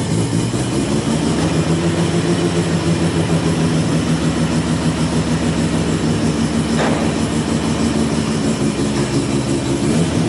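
A machine running steadily with a low, even droning hum.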